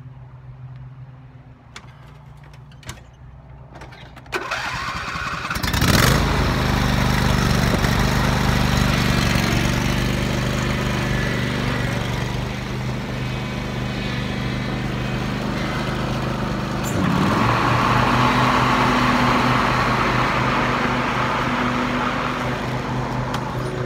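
Husqvarna YTH2348 riding lawn mower engine idling quietly, then throttled up about four seconds in and running loud and steady under load as the mower is driven off to mow; it gets louder again around seventeen seconds in.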